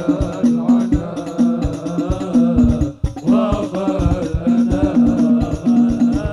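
Hadroh ensemble playing sholawat: rebana frame drums beating a dense rhythm under a man singing with wavering, ornamented phrases. The voice breaks off briefly about three seconds in, then carries on.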